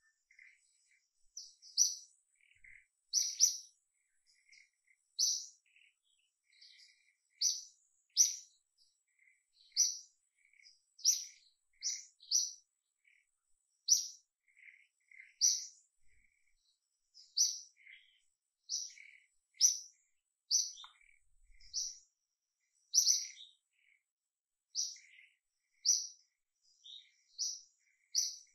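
A small bird chirping over and over: short, high chirps about every second, with fainter, lower chirps in between.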